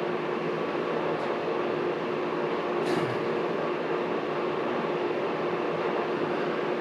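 Steady mechanical hum with a constant low tone, and a faint click about three seconds in.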